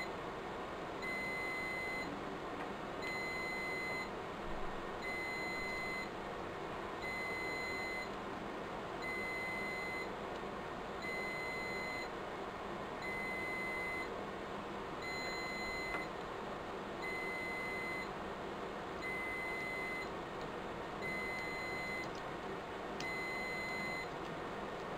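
Riello DVD 2200 UPS alarm beeping in a steady pattern, a high beep of just under a second about every two seconds: the battery warning of a UPS with worn-out batteries. Faint knocks from batteries and covers being handled.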